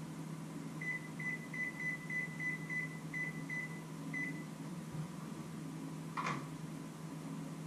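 Microwave oven keypad beeping as its buttons are pressed: about ten short high beeps at an uneven pace, then a single sharp click a couple of seconds later, over a steady low hum.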